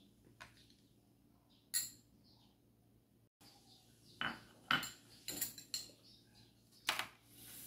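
Metal spoon clinking against a small glass bowl while scooping and sprinkling grated cheese: a couple of sharp clinks, then a quicker run of about five in the second half.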